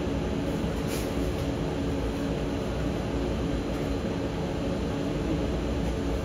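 Steady whirring hum of restaurant kitchen machinery, with a few faint held tones running through it and one light click about a second in.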